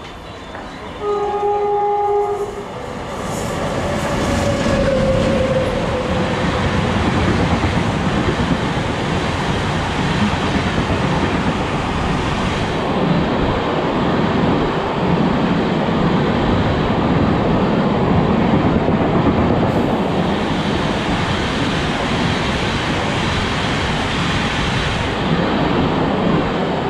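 Indian Railways WAP-7 electric locomotive sounding its horn in one blast about a second in, then the Tejas Rajdhani Express running through the station at speed: a steady, loud rush of wheels on the rails and passing coaches.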